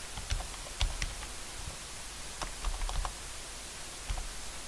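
Computer keyboard keys clicking: a dozen or so scattered, irregularly spaced keystrokes over a faint steady hiss.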